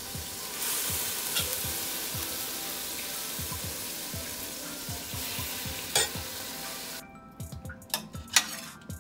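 Water boiling hard in a stainless steel pot: a steady hiss with low bubbling. About seven seconds in it cuts to a ladle stirring soup, with a few sharp clinks of the metal ladle against the pot.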